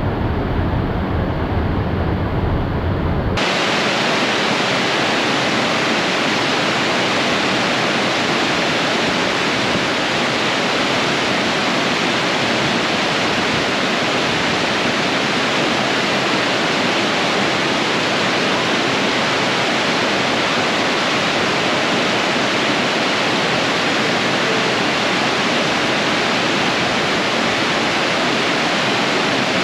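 Steady, even rush of water pouring over a river dam, coming in suddenly about three seconds in.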